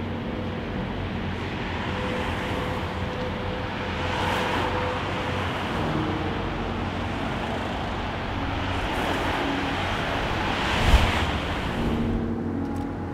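Road traffic: a steady wash of car noise with vehicles passing, the loudest pass about eleven seconds in.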